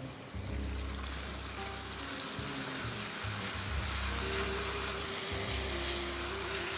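Ground pork in tomato sauce sizzling in an enamelled cast-iron braiser as it is stirred with a silicone spatula, with soft background music.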